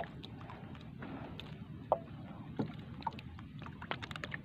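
Small waves lapping against the hull of a small wooden outrigger boat, with scattered light knocks and ticks.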